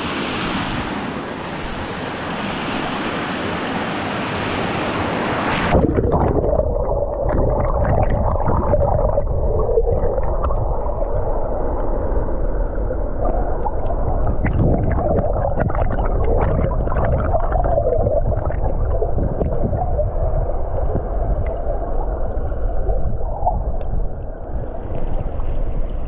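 Rushing water of a waterfall and river, then about six seconds in the sound turns abruptly muffled as the microphone goes underwater. A heavy underwater rumble of falling water follows, with gurgling, small knocks and a wavering hum.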